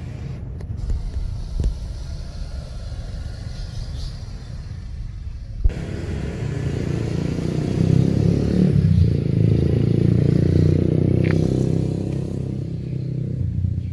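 A 250 cc ATV engine running with a steady low rumble. About six seconds in there is a sharp click, and the engine note swells louder, then eases back down near the end.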